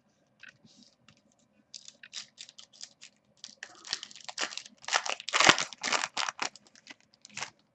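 Foil wrapper of a trading-card pack being torn open and crinkled: a quick run of crackling rustles, sparse at first, then densest and loudest for a couple of seconds past the middle.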